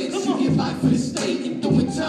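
Live hip-hop: male rappers' voices through handheld microphones over a beat with a regular kick.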